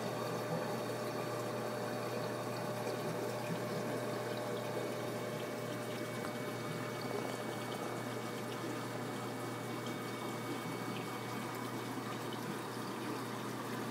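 Steady bubbling of water from an aquarium air stone aerating a fry tub, with a low steady hum underneath.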